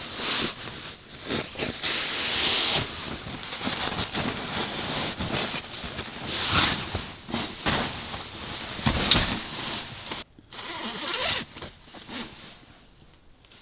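Cloth mattress cover rustling and scraping as it is handled and spread out, in irregular bursts with a brief pause about ten seconds in.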